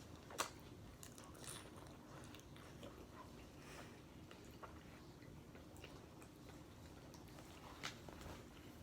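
Quiet chewing of nachos, with faint crunches throughout and a sharper crunch about half a second in and again near the end.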